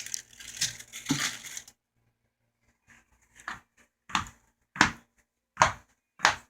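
Crunchy snack food being chewed close to the microphone: a short stretch of rustling, then a steady run of five crunches about two-thirds of a second apart in the second half.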